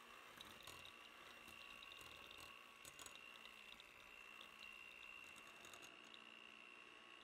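Electric hand mixer running, its beaters creaming softened butter: a faint steady motor whine with scattered light clicks from the beaters.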